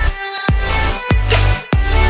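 Background electronic dance music with a heavy bass line and a regular drum beat, with a brief drop-out just after the start.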